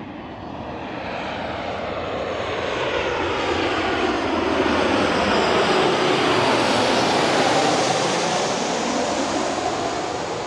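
Jet airliner on low final approach passing overhead, its engine noise swelling to a peak about two-thirds of the way in and then fading, with a whine that falls in pitch as it goes by.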